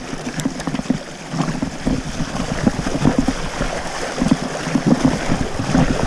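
Mountain bike riding over a rough trail: uneven rumble and buffeting on the action-camera mic, with scattered clicks and rattles from the bike.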